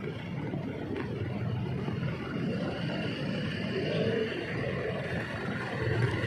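Steady rumble of slow city traffic, with the engines of a motorcycle and a jeepney running close by.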